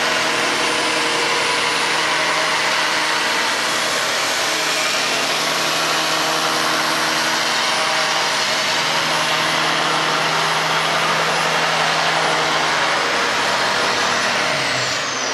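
Handheld electric belt sander running steadily as it sands a long curved wooden board. Near the end a high whine falls in pitch as the motor winds down.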